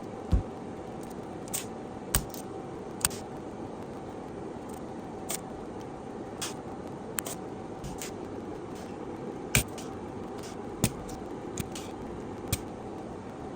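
Irregular sharp clicks and taps of small tools and metal parts being handled while an amplifier is taken apart, about a dozen in all, over a steady background hum.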